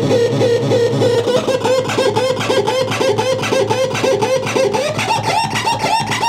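Handmade CMOS electronic sound generator putting out an even, rapid pulse of short electronic chirps, several a second, over a steady low tone. About five seconds in, the pitch of the chirps steps up higher.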